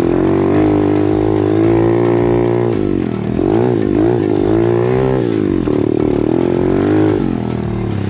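Pit bike engine, heard from on board while riding: it pulls at a steady pitch, then dips and revs up and down several times about three to five seconds in, then settles into a steadier run.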